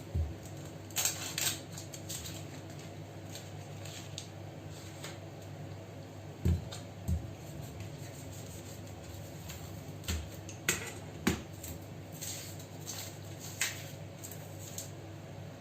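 Scattered light knocks, taps and rustles of an onion and kitchen utensils being handled on a counter before chopping, over a steady low hum.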